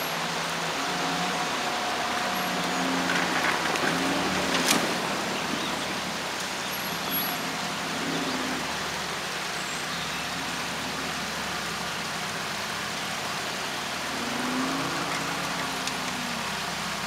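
Jeep Cherokee XJ engine working off-road, revving up and down several times as the SUV crawls over rough ground, over a steady hiss. A single sharp crack about five seconds in.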